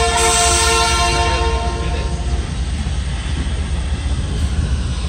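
Diesel locomotive air horn sounding one long chord of several notes, ending about two and a half seconds in, over the steady low rumble of the moving train.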